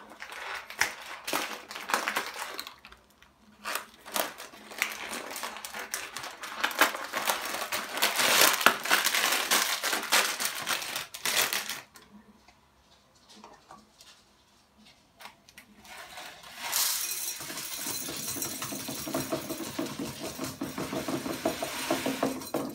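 Rustling and crinkling as a packet and plastic bag of dried comfrey root are handled and opened. After a nearly quiet pause of a few seconds, the dried root pieces are poured through a plastic funnel into a glass bottle, making a steady stream of small clicks against the glass.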